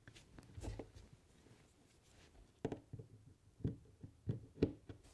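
Light clicks and taps of model railway track being pressed down and its rail joints fitted on a cork base, a few sharp ticks mostly in the second half.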